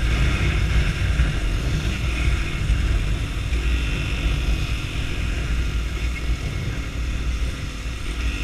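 Sundown STX 200 motorcycle being ridden on a wet road: heavy wind rumble on the microphone over the engine, with a hiss of tyres on the wet surface. The loudness eases off a little toward the end.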